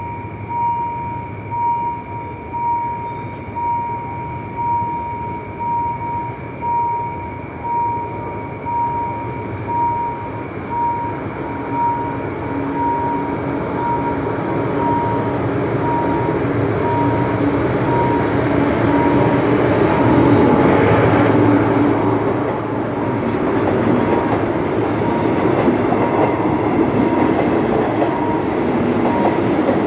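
A level-crossing warning signal dings about once a second while a train hauled by an Alsthom ALS diesel-electric locomotive approaches and passes. The rumble and wheel clatter build steadily and are loudest about two-thirds of the way through.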